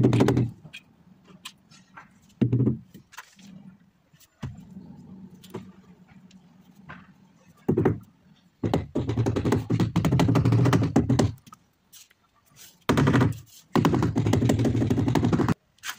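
White rubber mallet tapping ceramic wall tiles into the adhesive in runs of rapid blows. There are a few single knocks early on, then long runs of fast taps about halfway through and near the end.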